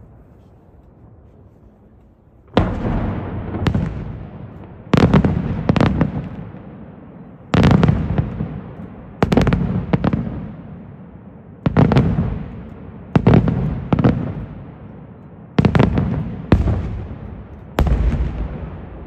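Aerial firework shells bursting overhead: after a quiet start, about a dozen loud bangs, mostly in pairs, each fading away in a long echo.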